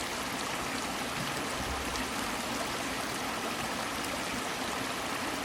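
Rushing floodwater pouring down a small waterfall in an overflowing creek channel: a steady, even rush.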